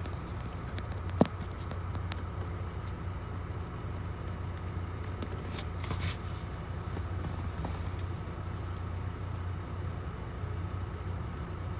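Sumitomo hydraulic excavator's diesel engine running steadily under load as it digs and swings a loaded bucket of earth. A sharp clank comes about a second in, and a brief rush of noise around six seconds in.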